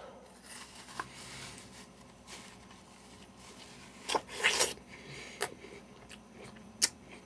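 A crisp Granny Smith apple being bitten into and chewed: a loud crunching bite about four seconds in, with quieter chewing and a few sharp clicks around it.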